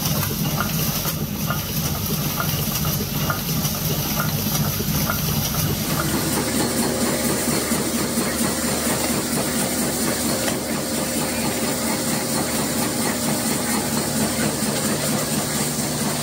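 Screw-factory machinery running steadily, with a regular clicking about twice a second for the first few seconds. About six seconds in, the sound changes to a steadier machine hum.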